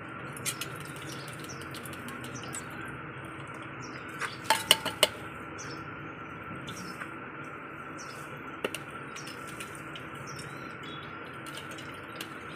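Steel spoon scraping and tapping against a small metal mesh tea strainer over a stainless steel bowl while pressing watermelon pulp through. It is mostly soft, with a few sharp, ringing metal clinks about four to five seconds in and a single clink near nine seconds.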